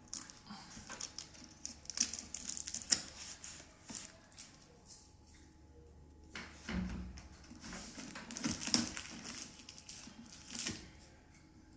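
Cardboard packaging being opened and handled: irregular rustling, crinkling and small knocks, with a heavier thump about seven seconds in.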